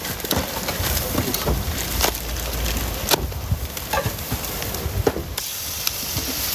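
Food sizzling and frying, with frequent clinks and knocks of cooking utensils being stirred and handled.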